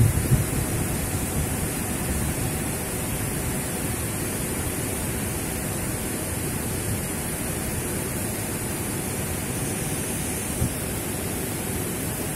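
Steady rushing noise with no distinct events, fading slightly in the first couple of seconds and then holding level.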